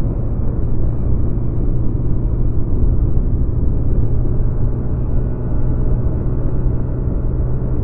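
Honda Dio scooter's single-cylinder engine running steadily while riding, a constant low rumble with a steady hum.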